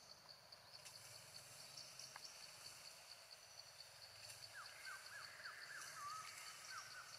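Faint forest ambience: an insect calls in a steady, evenly pulsing high-pitched trill throughout. From about four and a half seconds in, a bird gives a quick run of short, sharp whistled notes.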